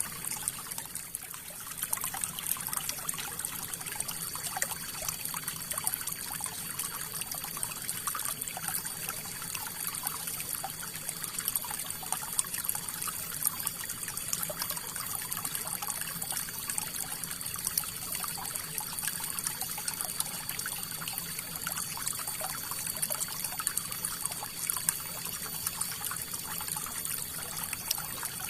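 River water flowing and splashing over rocks, a steady rush with many small splashes and trickles. It is briefly quieter about a second in.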